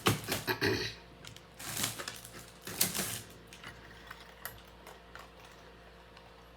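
Jewelry and a bag being handled: rustling and small clicks, loudest in the first second and again about two and three seconds in, then a few faint clicks.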